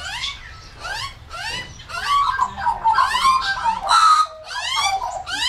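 Australian magpies calling: a juvenile's harsh, rising begging squawks repeated about twice a second, with a stretch of adult warbling in the middle.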